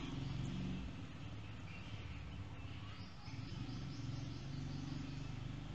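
Quiet background ambience: a low steady hum with faint, repeated high chirping through the middle.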